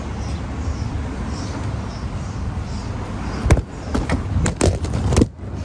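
An old tongue-and-groove wooden door being handled: a quick run of sharp knocks and clacks over the second half, over a steady low rumble.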